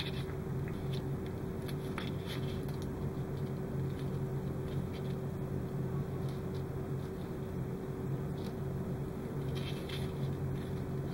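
A steady low background hum, with faint light rustles and ticks of thin hookup wires being twisted and handled by fingers, a few of them about two seconds in and again near the end.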